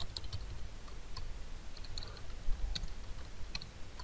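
Computer keyboard keystrokes and mouse clicks: about a dozen short, separate clicks at an uneven pace as a card number is typed and form fields are picked.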